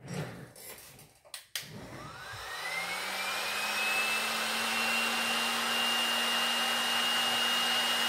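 A few handling knocks, then a heat gun switched on about a second and a half in. Its fan motor spins up with a rising whine and settles into a steady high whine with a low hum and a rush of blown air.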